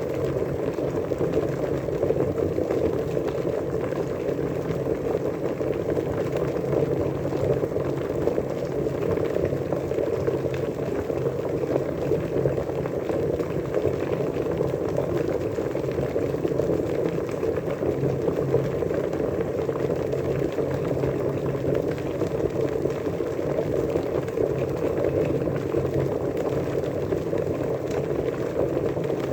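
Water boiling: a steady, dense bubbling that never lets up, strongest in the low middle range.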